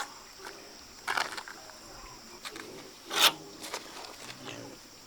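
Irregular scraping and knocking strokes, like hand tools working rough material. The loudest is a swelling scrape about three seconds in, and a faint steady high-pitched tone runs underneath.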